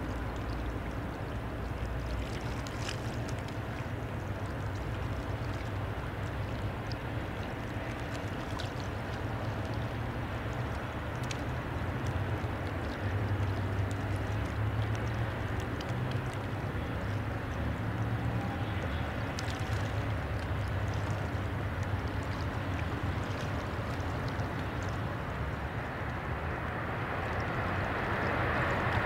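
Diesel engine of a passing Rhine motor tanker barge, a steady low drone that grows louder about halfway through as the stern and engine room go by, over the wash of water. A broad rushing noise builds near the end.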